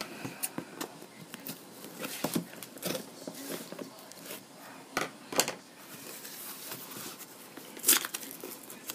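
Cardboard shipping box being handled and worked open by hand: scattered rustles, scrapes and small clicks, with two sharper knocks about five seconds in and another near the end.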